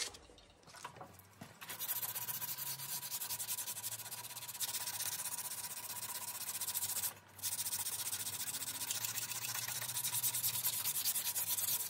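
Coarse-grit sandpaper held by hand against a canary wood handle spinning on a wood lathe: a steady hissing scrape as the paper is worked side to side along the handle. It starts about one and a half seconds in and breaks off briefly around the middle before resuming.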